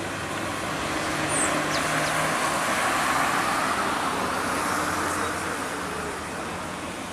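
Diesel engine and tyre noise of a rigid cargo truck climbing a grade toward the listener. It swells to its loudest about three seconds in, then eases off.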